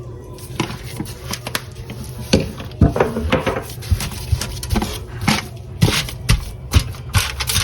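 Spice jars and containers handled on a kitchen counter while seasoning ribs: irregular knocks, taps and rattles, with a few louder clacks in the middle and near the end, over a steady low hum.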